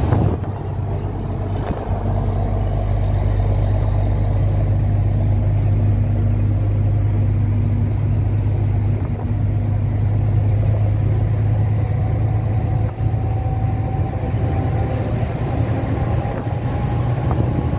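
Volvo NH 380 truck's diesel engine running steadily at highway cruise, heard from inside the cab as a low drone over road noise.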